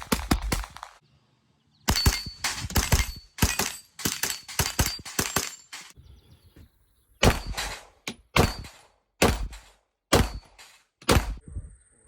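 Submachine gun firing on full automatic in bursts: a rapid burst ends about a second in, two longer bursts follow, then a run of short bursts of two or three shots each.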